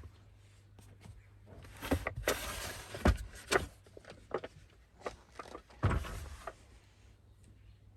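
Rustling and a series of knocks and clunks of objects being handled and set down, the loudest about three seconds in and again near six seconds, over a steady low hum.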